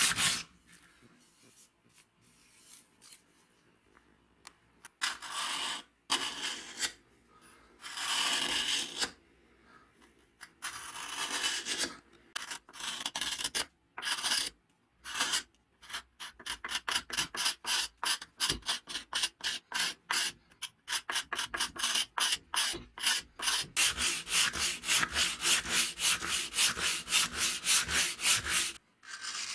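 Hand sanding of wood: abrasive paper rubbed back and forth in scratchy strokes. A few slow, long strokes come first, then fast, even strokes at about three to four a second through the second half.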